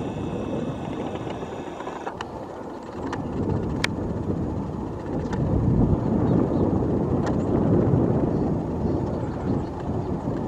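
Engine rumble of a delta-wing fighter jet flying low on approach with its landing gear down, growing louder a few seconds in.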